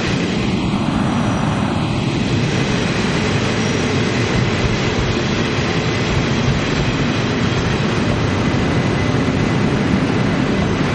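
Chu-Kuang Express passenger train, led by an E200-class electric locomotive, running into the station along the platform to stop: a loud, steady noise of the wheels and coaches going past close by.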